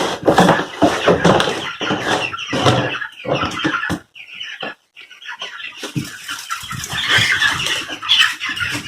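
Young Cornish Cross meat chicks peeping and chirping, mixed with rustling and handling noises. The sound drops out briefly about four seconds in.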